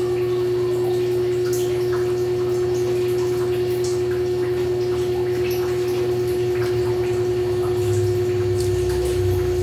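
Small clip-on electric fan running: a steady hum with one clear, unchanging tone and a lower drone beneath, with faint scattered clicks over it.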